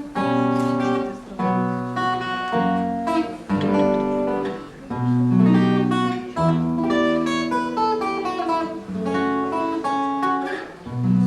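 Acoustic guitar playing a passage of picked notes and chords, each note ringing and fading.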